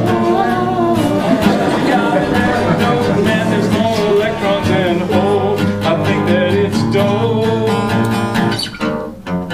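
Acoustic guitar strummed steadily under a song, with a voice holding a wavering sung note in the first couple of seconds. Near the end the strumming breaks into separate chord strokes.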